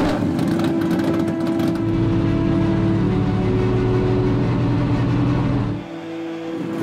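Race car's V8 engine running steadily with an even, low note, dropping away suddenly about six seconds in.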